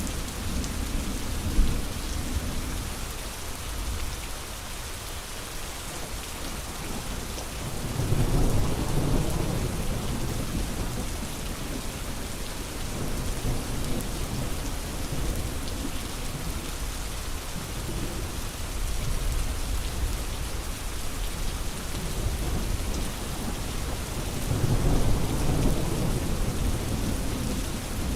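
Steady rain falling, with low rolls of thunder swelling up about a third of the way in and again near the end.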